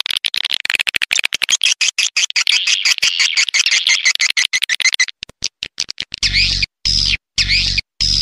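Edible-nest swiftlet call recording used as a lure for a swiftlet house: dense, rapid twittering and clicking chirps. About five seconds in the chirping thins to separate clicks, then three longer chirp phrases follow, each with a low hum beneath it.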